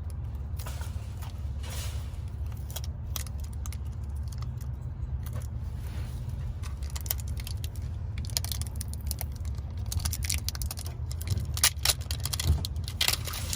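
Plastic toy packaging crackling and clicking as it is worked open, the clicks growing busier in the second half, over a steady low rumble.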